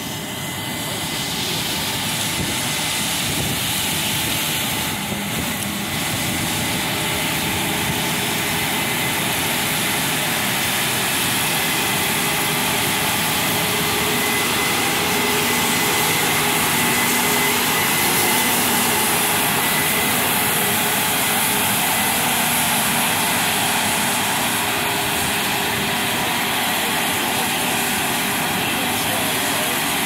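Case IH 8250 Axial-Flow combine harvesting corn: engine and threshing machinery running with a steady drone and a high whine over it, growing louder as the machine comes close and loudest about halfway through.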